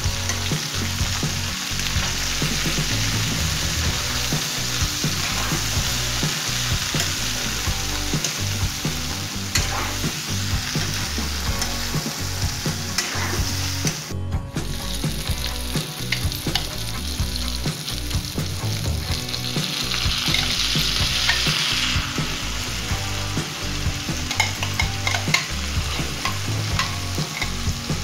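Cauliflower florets and potato cubes frying in oil in an aluminium kadhai, sizzling steadily while a metal spoon stirs them, with scattered clicks of the spoon against the pan. The sound cuts out for an instant near the middle, and the sizzle grows louder for a few seconds after that.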